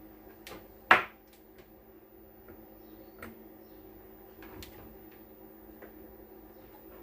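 Sharp clicks and taps of small tools and parts being handled on a repair bench, one much louder snap about a second in, over a steady low electrical hum.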